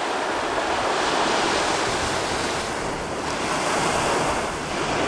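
Sea waves washing against a rocky shoreline, a steady rush of surf that swells and eases, with wind buffeting the microphone.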